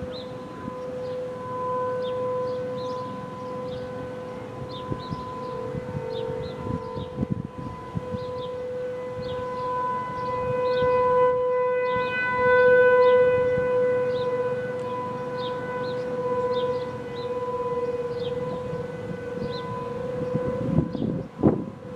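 American Signal T-128 rotating outdoor warning siren sounding a steady single-pitch alert tone, swelling and fading as the horn turns. There is a brief low rumble near the end.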